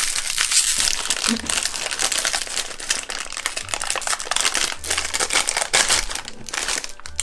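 Plastic wrapper of a packet of digestive biscuits being pulled open and crinkled by hand: a dense run of crackles that stops near the end.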